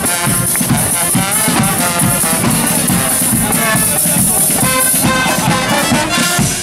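Guggenmusik carnival band playing while marching: trombones and trumpets in loud, brassy chords over bass drum and snare drum beats.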